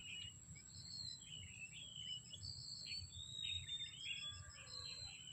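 Small birds chirping and twittering repeatedly over faint low background noise in quiet open air.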